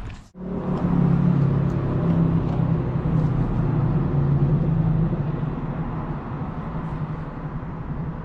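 A motor vehicle's engine running steadily as a low hum, with street noise around it, easing a little in loudness over the second half.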